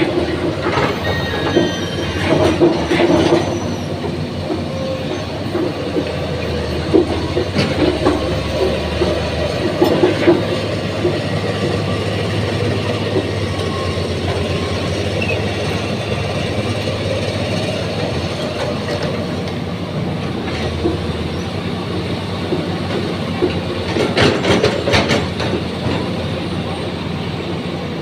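Excavator working: a steady engine hum with metal clanking and knocking, and high squeals in the first few seconds. The clanking is heaviest at the start and again near the end.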